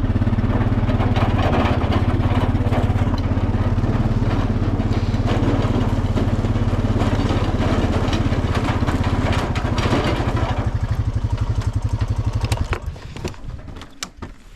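Quad bike engine running steadily while riding, with a rough rattle, then stopping near the end.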